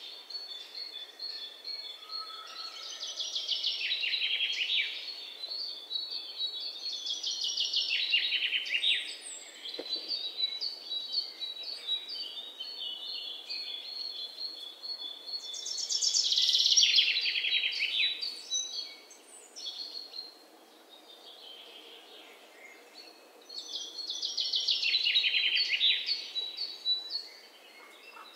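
Songbirds singing in woodland ambience: loud, fast trilled song phrases come every few seconds, strongest about a quarter of the way in, around two-thirds of the way through, and near the end, over a softer steady background of chirps.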